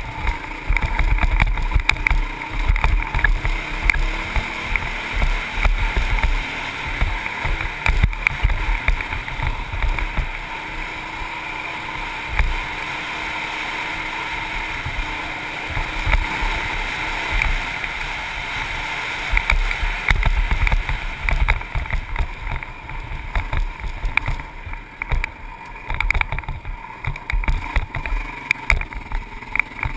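Wind buffeting a helmet-mounted camera at riding speed, over a Honda CRF450X dirt bike's single-cylinder four-stroke engine running underneath. The buffeting eases and evens out for several seconds in the middle.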